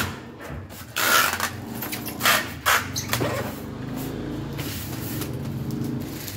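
Adhesive tape being pulled off a roll in several short, harsh rips, the longest about a second in.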